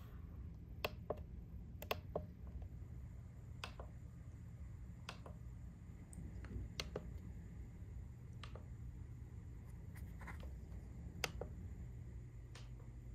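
Push buttons on a hotel bedside control panel clicking as they are pressed, about a dozen sharp clicks at irregular intervals, over a low steady room hum.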